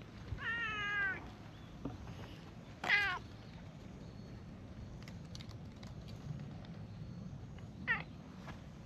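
Brown tabby cat meowing three times: a long, wavering meow near the start, a short loud one about three seconds in, and a brief falling meow near the end.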